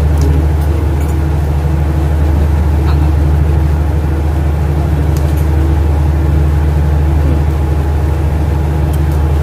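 Supply ship's engine machinery running with a steady, loud low drone.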